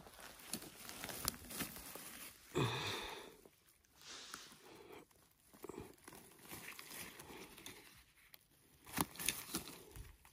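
Rustling, crackling and crunching of forest-floor litter and mushrooms being pulled and handled by hand during bolete picking, with a brief louder sound about two and a half seconds in and a few sharp snaps near the end.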